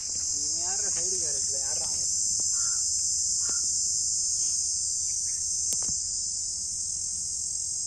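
Steady high-pitched insect chorus, a continuous shrill drone that does not let up. A voice is heard briefly in the first two seconds and there is one sharp click near six seconds.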